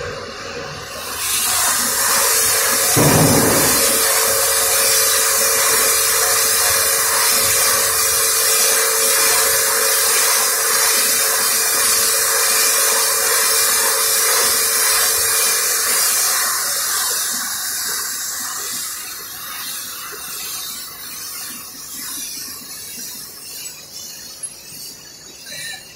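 A loud, steady hiss with a faint steady hum beneath it. It swells up about a second in, has a short low thud around three seconds in, and fades gradually over the last third.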